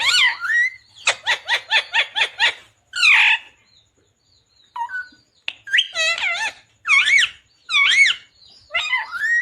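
Ringneck parakeet calling: a quick run of about ten short chattering notes, a louder, harsher squawk about three seconds in, then after a short pause several wavering, up-and-down whistled calls.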